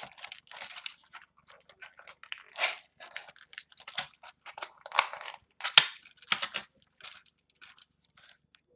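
Plastic toy packaging being handled and pried at by hand: irregular crinkling and crunching, with one sharp snap a little before six seconds in.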